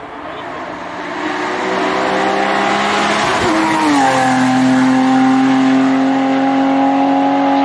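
Race car engine at a hill climb running hard, growing louder as it approaches. The engine pitch climbs, then drops sharply about three and a half seconds in, as at a gear change, and holds at high revs after that.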